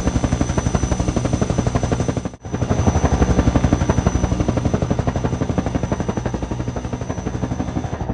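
Helicopter sound with a rapid, even rotor chop and a steady high whine. It plays dry for about two and a half seconds, breaks off briefly, then comes back slightly louder as rendered between two parallel walls, which raise its volume by reflection.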